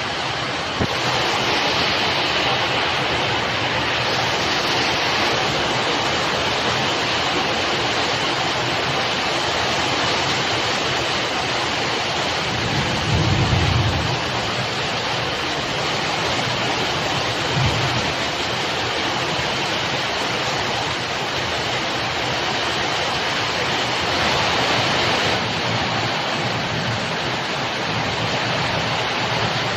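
Heavy rain pouring down steadily in a thunderstorm. A low rumble of thunder swells up a little before halfway through, with a shorter one a few seconds later.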